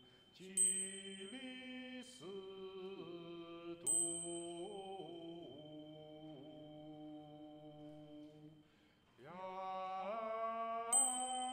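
Small choir singing a slow, chordal sacred Latin motet in a church, holding sustained chords that shift every second or so. A high, bright ringing strike sounds three times: about half a second in, about four seconds in, and near the end. The voices break off briefly just before nine seconds and come back in together.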